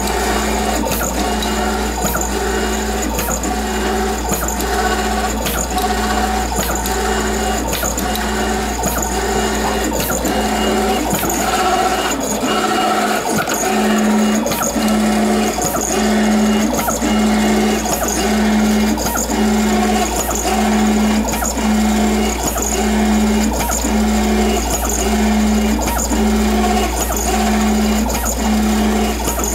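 FastJet II wide-format inkjet plotter running, its carriage and paper-feed mechanism clicking regularly about three times every two seconds over a steady low motor hum. From about halfway through, a low tone comes and goes about every second and a quarter.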